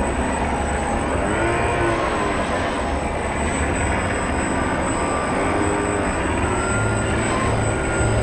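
Motor and propeller of a radio-controlled scale model catamaran ferry running, picked up by its onboard camera: a steady mechanical whine with a constant high tone, its pitch swinging up and back down briefly twice.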